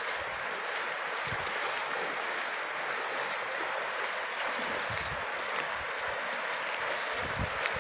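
Shallow river rushing steadily over rocks, with a few brief low bumps of wind on the microphone.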